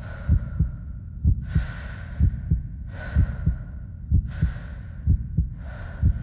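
Slow heartbeat, a double thump about once a second, with quick breaths in and out between the beats.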